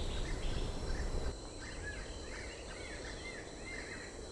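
Tropical forest ambience: a steady high insect drone with a bird giving a run of short, repeated arched chirps in the middle. The low background hiss drops about a second in.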